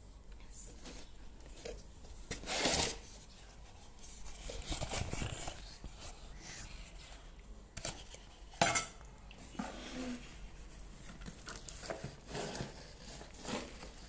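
Cardboard box being opened and handled by hand: intermittent rustling and scraping of cardboard flaps, with a louder burst about two and a half seconds in and a sharp knock a little past halfway.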